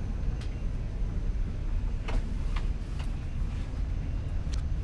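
Steady low rumble of an airliner cabin at the gate, with a few light clicks and knocks, several of them between about two and three seconds in.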